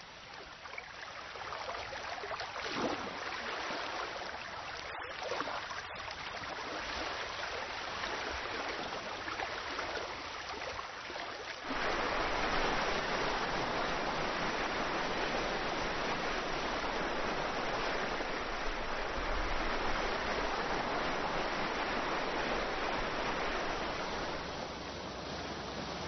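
Rain falling and dripping, growing heavier over the first seconds. About twelve seconds in it gives way suddenly to the steady, louder rush of a waterfall.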